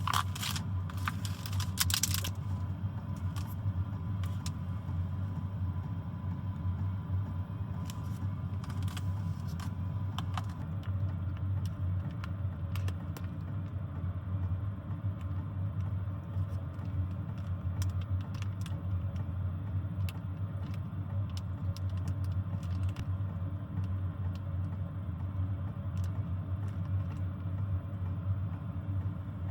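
A steady low rumble, with a few louder rustles and clatters in the first two seconds and scattered light clicks after.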